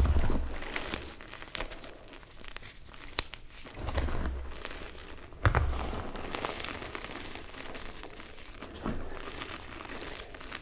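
Dyed gym chalk being squeezed and crushed by hand: irregular crunching and powdery crumbling, with a sharp snap about three seconds in and heavier thumps at the start, about four seconds in and about five and a half seconds in.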